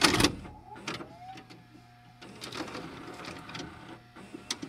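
A VCR loading a VHS cassette: the loudest clunk comes at the start, then a few more clicks from the tape mechanism over a steady motor hum and whirring.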